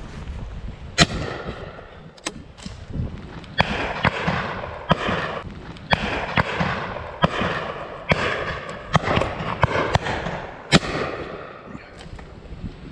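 Shotgun shots from several guns firing at driven pheasants: about a dozen irregular bangs, some close and sharp, others fainter and farther off, each trailing a short echo.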